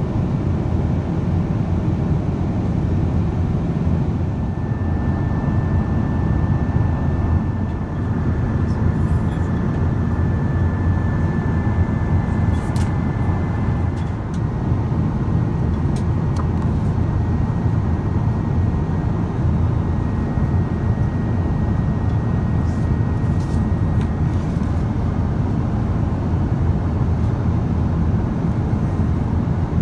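Steady in-flight cabin noise aboard a Boeing 777-200ER at cruise: a constant low rumble of airflow and engines. A faint thin tone runs through it, and there are a few light clicks.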